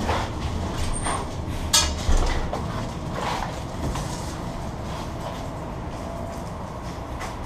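A loaded touring bicycle being wheeled out of an elevator, with handling knocks and clicks, the loudest a sharp knock a little under two seconds in, over a steady low rumble.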